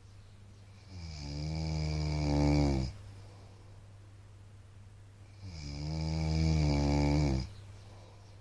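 A man snoring in his sleep: two long, buzzing snores, each about two seconds, the second following about four seconds after the first.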